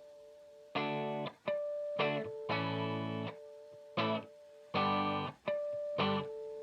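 Instrumental music: a run of short, sharply cut chords, with a steady held note sounding in the gaps between them.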